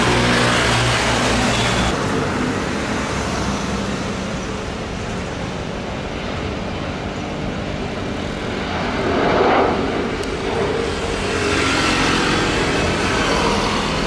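Airliner jet engine noise: a Boeing 737 MAX 8 climbing away after takeoff, then, from about two seconds in, the steady rumble and whine of a Lion Air Airbus A330-300's Rolls-Royce Trent 700 engines as it moves along the ground. The rumble swells briefly near the middle and rises again toward the end.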